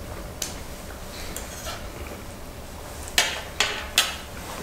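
A utensil clinking and scraping against a small camp pot while eating: one sharp clink about half a second in, light scraping, then three quick clinks near the end.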